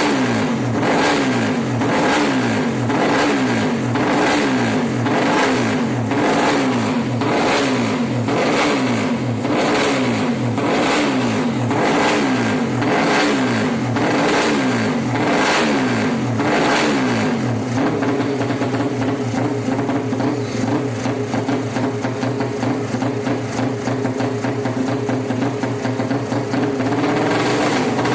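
Racing motorcycle engine, a Suzuki Satria FU bored out to 200cc, being revved in quick repeated blips, about one a second. About two-thirds through it settles to a steady idle, then picks up again near the end.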